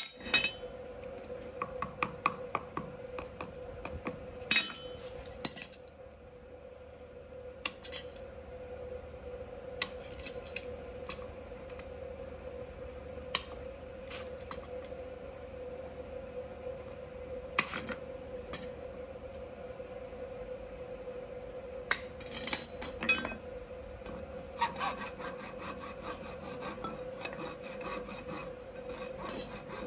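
Steel farrier's hand tools working a horse's hoof: scattered sharp clicks and knocks, then near the end a run of steady rhythmic scraping strokes as a hoof rasp files the hoof wall. A steady faint hum runs underneath.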